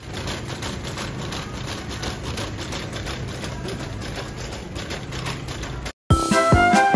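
Shopping cart being pushed along a store aisle, its wheels and wire basket rattling steadily. It cuts off about six seconds in and music with a steady beat starts.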